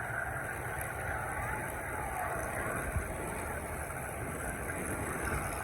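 Piston aero engines of WWII fighters running steadily as they taxi.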